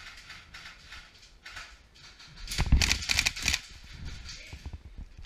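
Airsoft electric guns firing in rapid bursts, a fast rattle of shots, with a louder, closer burst and heavy thumps about two and a half seconds in.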